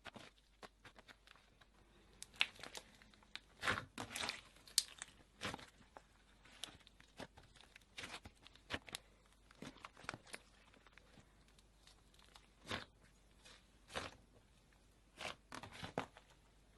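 Slime being squeezed and pressed by hand, giving off irregular crackles and pops, with louder clusters about two to five seconds in and again near the end.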